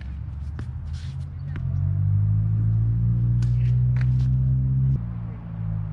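Tennis rally: sharp pocks of the ball struck by rackets and bouncing on the hard court. Under them is a low, steady hum, like an engine, that grows a little over a second in, is the loudest sound through the middle and stops suddenly near the end.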